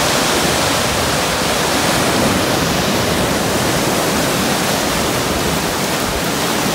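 Ocean surf washing through narrow channels between rocks: a steady, even rush of churning seawater.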